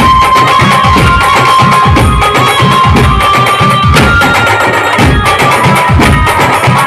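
A street musical band playing loud music: fast, dense drumming on hand-beaten and slung drums under a held lead melody that steps to a new note a few times.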